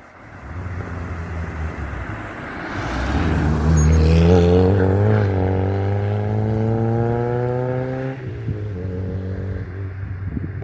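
A car's engine approaching and passing under acceleration, its pitch rising steadily through one gear. The pitch drops abruptly about eight seconds in, and the engine keeps running at a lower pitch as the car moves away.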